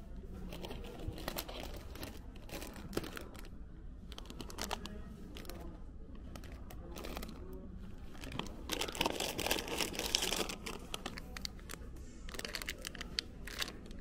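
Crinkling of a plastic gummy-candy bag being picked up and handled, in bursts about two-thirds of the way in and again near the end, over a steady low hum.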